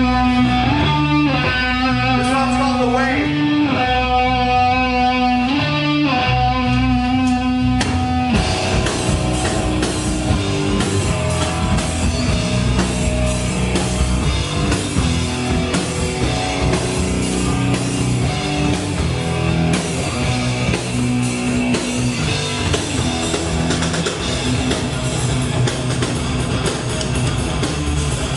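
Metal band playing live: a guitar riff of held, ringing notes, then about eight seconds in the full band crashes in with distorted electric guitars and drum kit.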